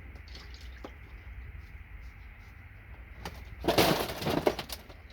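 Fingers being rubbed and swished clean in a container of liquid to wash off loosened gold foil: a burst of quick rubbing and splashing strokes about three and a half seconds in, over a low steady hum.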